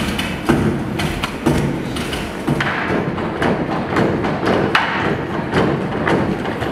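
Brooms knocked and tapped on the stage floor by a group in a percussion routine: a rhythmic run of thumps, about two a second.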